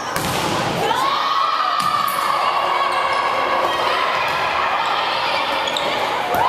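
Volleyball rally in an echoing gym: a hard hit on the ball at the start and a few more ball contacts, under women players shouting and calling out in long, high-pitched voices.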